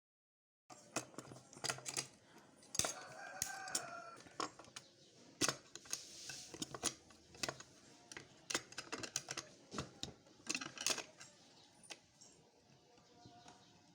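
Hard disk parts being handled and taken apart: an irregular string of sharp metallic clicks and taps, with a brief call in the background about three to four seconds in.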